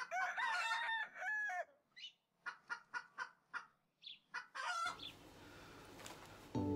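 Rooster crowing once, then a string of short clucks. Faint room hiss comes in after about five seconds, and music starts right at the end.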